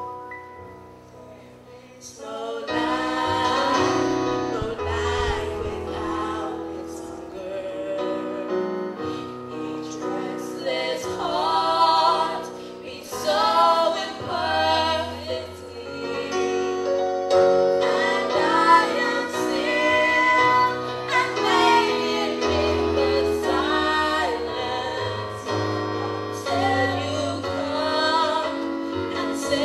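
Slow sacred song: singing over long sustained chords, coming in about two seconds in after a soft opening.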